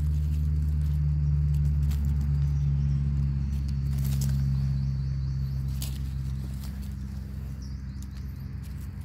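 A steady low hum runs throughout, loudest in the first half and easing after about six seconds, with a thin high steady tone over it until about the same point. A few sharp crackles of dry leaves and twigs come as a mushroom is pulled from the leaf litter by hand.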